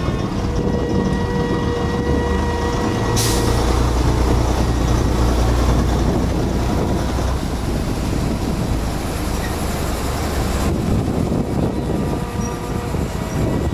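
Vintage electric work tram rolling past slowly on its rails, with the diesel engine of a truck following behind it running low and heaviest in the middle of the passage. A brief sharp sound comes about three seconds in.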